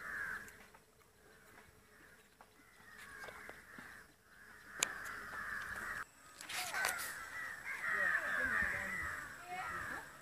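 Many birds calling at once, a dense chatter of short overlapping calls, with a brief louder burst a little past halfway.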